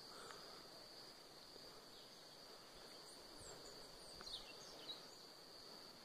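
Faint steady high-pitched insect buzz, with a few short chirps about four seconds in.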